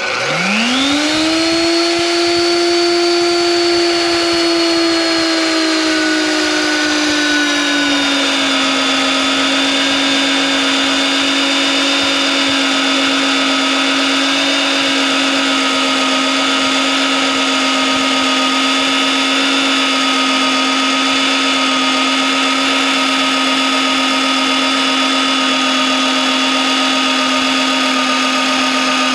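Vevor BRM-35 magnetic drill press motor spinning up and driving a twist drill bit through half-inch hot-rolled steel plate in one continuous pass. The whine rises as the motor comes up to speed, holds steady, and settles slightly lower in pitch about eight seconds in.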